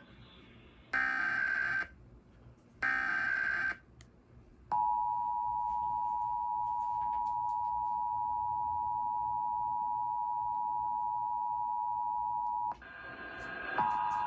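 Emergency Alert System test tones. First come two roughly one-second bursts of the screeching digital SAME header data, then the steady two-tone EAS attention signal, held for about eight seconds before it cuts off. Shortly before the end another stretch of tones begins.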